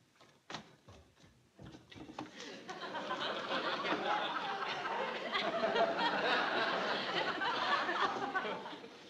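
Studio audience laughing, swelling up about two and a half seconds in and dying away near the end. A couple of light knocks come before it.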